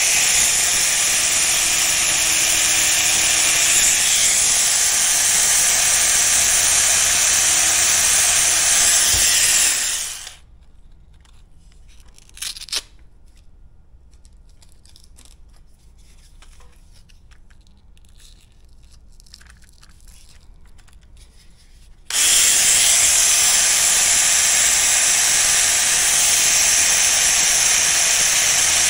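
An electric sanding tool runs steadily against the steel blade of tailor's shears, resurfacing it to take out pits and discoloration. About a third of the way in it winds down and stops, leaving faint handling sounds and one short knock, then it starts up again sharply about two thirds of the way in.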